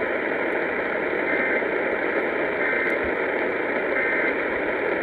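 Radio static hiss, with three short, faint EAS data bursts about 1.3 seconds apart: the end-of-message code that closes an Emergency Alert System broadcast.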